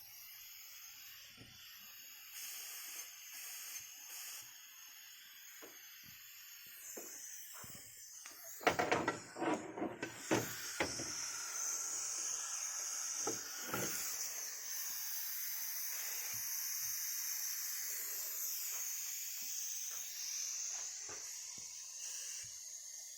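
Steady hiss of pressurised smoke and air during a vacuum-leak smoke test, growing louder about ten seconds in. Just before, a cluster of knocks and rattles comes, with a couple more a few seconds later.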